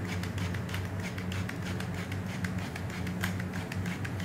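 Pepper mill grinding peppercorns: a rapid, irregular run of clicks over a steady low hum.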